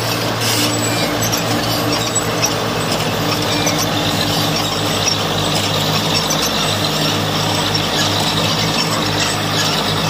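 Heavy diesel earthmoving machinery running steadily under work, a constant engine drone under dense mechanical clatter.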